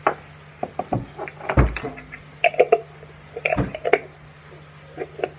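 A metal teaspoon clinking and tapping against a wooden mortar and spice jars, with a few duller knocks of things set down on the counter, as ground spice is spooned into the mortar. The sounds come as a string of separate clicks and clinks, two of them deeper thuds.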